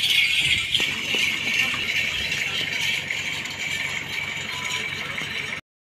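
Dense, steady jingling and rattling of the small bells on decorated camels' trappings as the camels walk past. The sound cuts off abruptly near the end.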